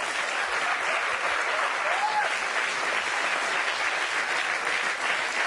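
Theatre audience applauding steadily, a sustained wash of clapping in approval of a joke.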